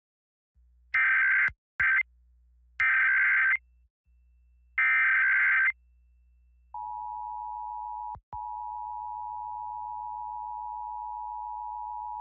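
Emergency Alert System alert opening: three short bursts of the digital SAME header data tone, then about seven seconds in the steady two-tone EAS attention signal (853 and 960 Hz together) begins and holds, broken by a brief dropout about eight seconds in.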